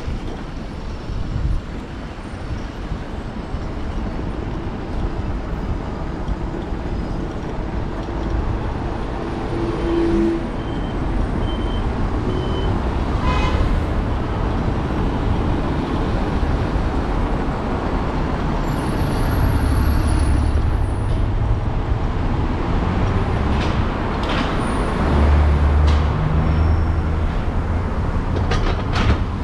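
City road traffic running close by: cars and buses in slow, heavy traffic, a steady mix of engine and tyre noise with brief higher tones and clicks here and there.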